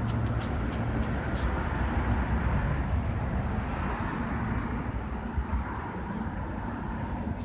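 Gas lawn mower engine running steadily.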